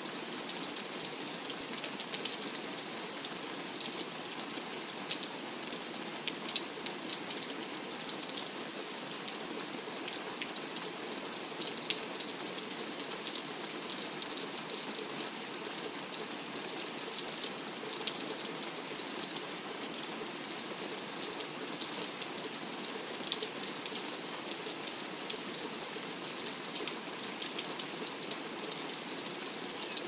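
Steady rain falling, a constant hiss dotted with the ticks of individual drops.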